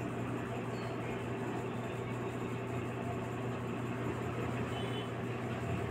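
Steady low hum with a hiss of background room noise, unchanging, with no distinct sound events.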